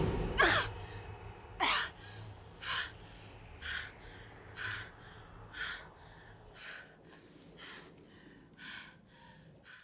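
A woman panting hard, out of breath: ragged gasping breaths in and out, a strong one about every second, slowly growing quieter.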